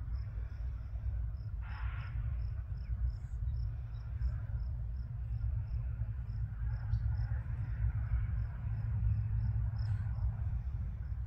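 Cricket chirping steadily at a high pitch, about three chirps a second, over a steady low rumble. A brief rustle about two seconds in.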